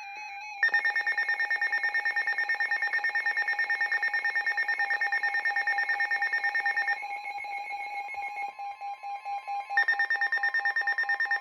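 Weather alert radio sounding its alarm for an incoming severe thunderstorm warning: a loud electronic beep pulsing about ten times a second. It starts under a second in, thins out for a few seconds partway through, then returns at full strength.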